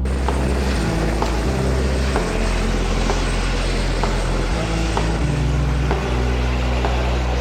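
Steady roar of a helicopter's engine and rotors, with background music carrying a slow beat and a bass line underneath.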